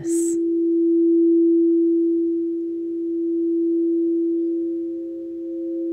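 Crystal alchemy singing bowls ringing: one steady low tone that swells and fades slowly, with a fainter, higher tone that grows stronger near the end.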